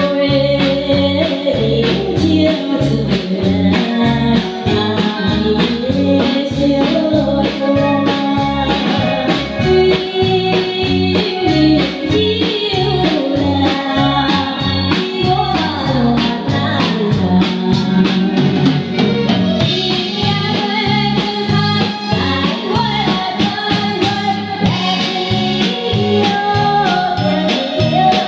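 Live band music: electronic keyboard with an organ-like sound, drum kit and electric guitar over a steady beat, with a woman singing the melody.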